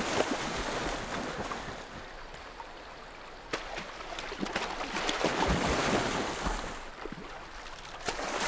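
A coyote's paws splashing through shallow river water as it runs, over the steady rush of the river, with scattered sharp splash clicks.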